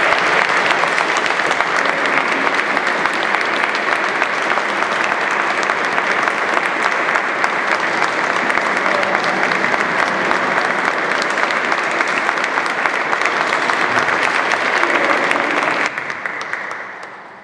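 Audience applauding steadily, a dense sound of many hands clapping. The applause thins about sixteen seconds in and fades away near the end.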